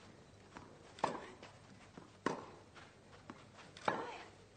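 Tennis rally: three sharp racket strikes on the ball about one and a half seconds apart, each with a short echo, and fainter ticks of bounces and footsteps between them.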